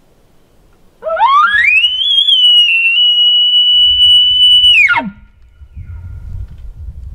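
Imitation elk bugle blown on an elk call: one loud whistle starting about a second in that slides quickly up from a low note to a high shrill note, holds there for about three seconds, then drops steeply back down.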